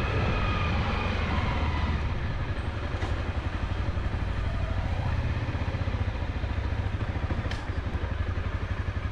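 Honda CRF250L's single-cylinder engine running at low speed with a steady, even chug as the motorcycle rolls slowly.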